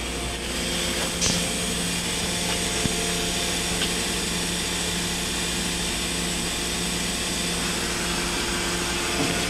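Mazak VCN-510C machining center's 4th-axis rotary table turning under power: a steady mechanical hum with a constant low tone, running smoothly and quietly.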